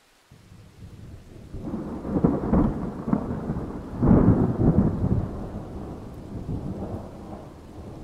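Thunderclap rolling through a rainstorm. The rumble starts suddenly, builds to loud peaks about two and four seconds in, then rolls away slowly over the steady hiss of rain.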